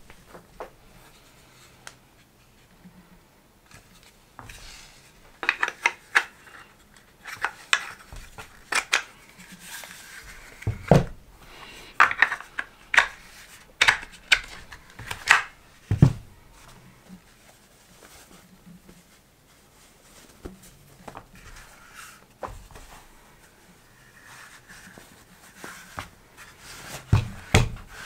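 Plastic clicks and knocks as a folded plastic laptop stand is handled on a wooden desk and its black end caps are pushed onto its ends. The clicks come thickly in the first half, stop for a while, and return near the end.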